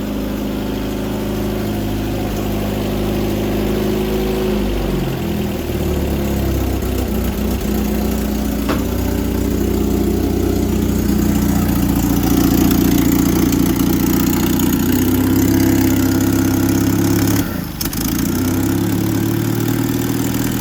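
Carbureted engine running after a cold restart, its speed shifting about five seconds in and dipping briefly near the end. The owner puts its running down to an exhaust leak and a bad Rochester carburettor.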